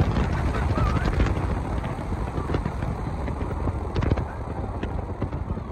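Low rumble of a moving car heard from inside the cabin, fading steadily as the car slows.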